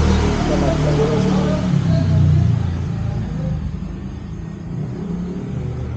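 Gas burners of a three-burner folding camping stove burning with a steady low rumble that gets somewhat quieter about halfway through.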